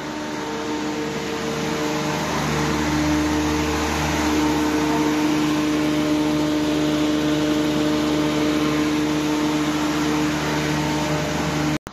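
Electric grain mill running: a steady motor hum with a rush of air and grain, a little louder about two seconds in, cutting off suddenly near the end.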